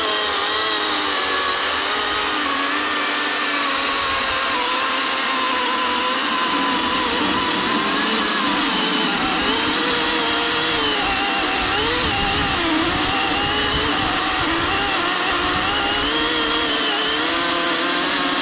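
Ryobi battery-powered chainsaw cutting through a thick log: a steady motor whine with the chain chewing through wood, its pitch dipping and wavering as the bar loads up in the cut.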